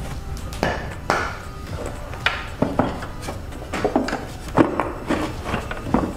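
Hard plastic battery box being shifted and worked loose: irregular knocks, clicks and scraping of plastic against metal, with the loudest knock about four and a half seconds in.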